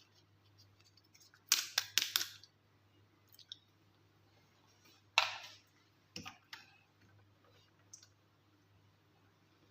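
Sharp clicks and taps of small plastic toys and packaging being handled, over a faint steady hum. There is a quick cluster about one and a half seconds in, a single louder click about five seconds in, and a few lighter taps after that.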